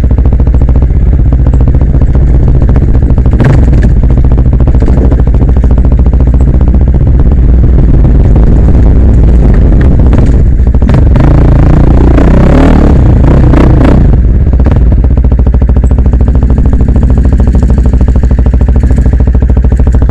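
Enduro motorcycle engine running close to the microphone, loud and steady, with a busier stretch of rising and falling engine sound about halfway through and a few knocks.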